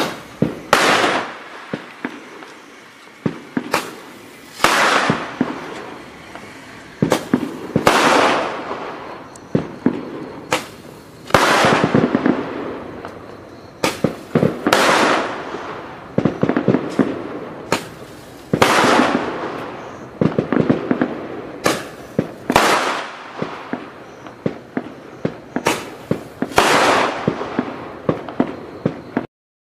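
Sunwing Skull Popper 8-shot roman candles firing shot after shot, about every one to two seconds. Each shot is a sharp crack followed by a hissing burst that fades over about a second.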